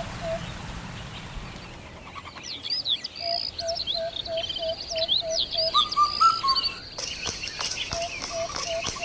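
Birds chirping and calling: many quick, high chirps and sweeps over a short lower note repeated about four times a second.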